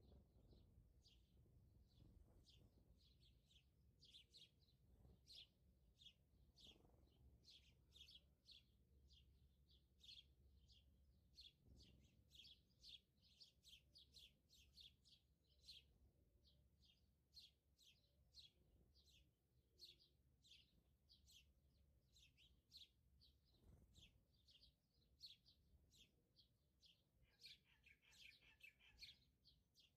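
Faint bird chirping: a quick series of short, high chirps repeated two or three times a second, with a denser flurry of calls near the end.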